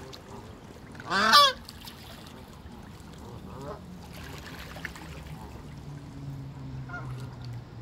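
Canada geese on the water: one loud honk about a second in, followed by a couple of fainter calls later.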